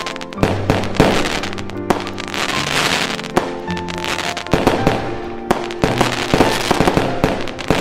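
Fireworks going off in a rapid series of sharp bangs and crackling, over background music with held tones.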